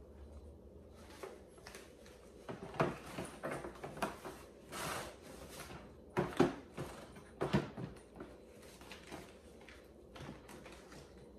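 Plastic clicks and knocks with brief fabric rustling as the grass-catcher bag and its frame are handled and fitted onto a Sun Joe electric lawn mower. A few sharper knocks stand out, about three, six and a half and seven and a half seconds in.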